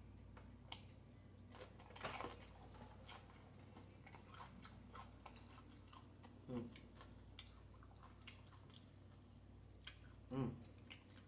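Faint chewing and crunching of a mouthful of taco salad on tortilla chips, a run of small crunches with a louder crunch about two seconds in.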